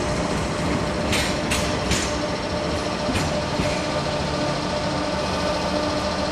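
A train running on the rails, a steady rumble with four sharp clicks in the first few seconds.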